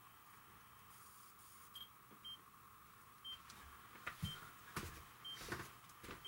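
A camera's self-timer beeping, short high beeps about once a second, counting down to a photo. Over the second half, footsteps and rustling are louder than the beeps.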